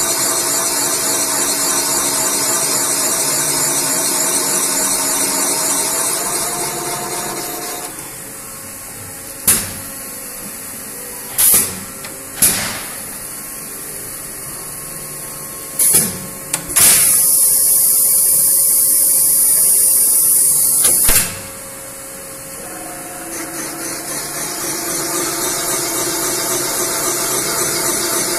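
Valve-seat cutting machine's spindle running a cutter in a cylinder head's valve seat with a steady hum. It drops away after about seven seconds, and several short sharp sounds and a loud hiss lasting about four seconds follow. The machine's hum builds back up near the end.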